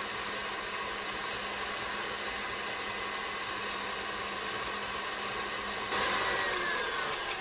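KitchenAid Classic Plus stand mixer running at high speed, its six-wire whip beating heavy cream into whipped cream, a steady motor whine over the whisking. About six seconds in, as the speed lever is moved, the sound grows louder, a few clicks come through, and the motor's pitch starts to fall.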